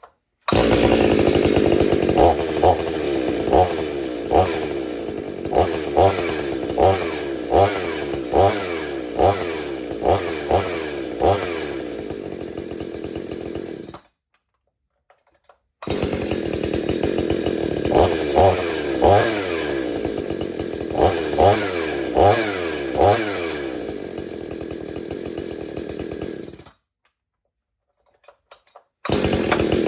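Two-stroke chainsaw idling and being revved in quick throttle blips, a little more than one a second. The running breaks off abruptly twice, then resumes.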